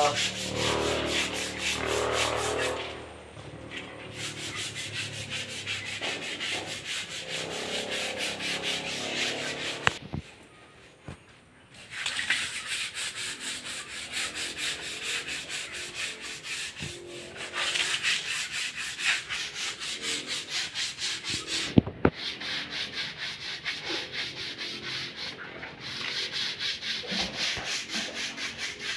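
Hand scrub brush scrubbing wet, soapy concrete in quick, rhythmic back-and-forth strokes, pausing for about two seconds some ten seconds in.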